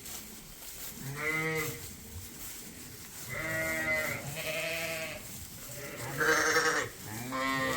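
Sheep bleating in a barn pen: about five separate wavering bleats, one after another, the last running on past the end.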